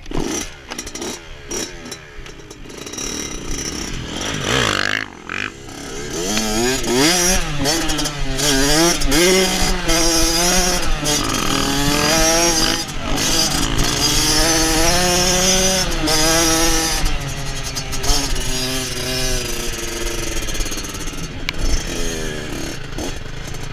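Small dirt bike engine being ridden, revving up and down over and over so its pitch rises and falls repeatedly. It comes in much louder about six seconds in.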